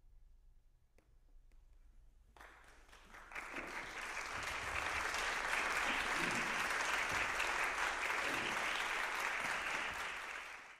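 A hush, then an audience breaks into applause about two seconds in, building quickly within a couple of seconds and holding steady.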